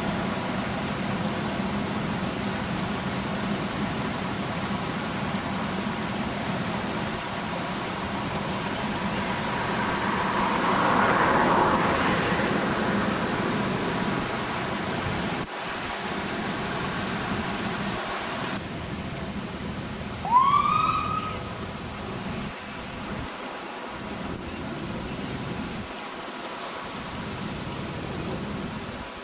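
Steady rush of fast-flowing floodwater and outdoor air noise on a camcorder microphone, swelling for a few seconds in the middle and changing suddenly about halfway through. About two-thirds of the way in, one short, loud call rises and falls in pitch.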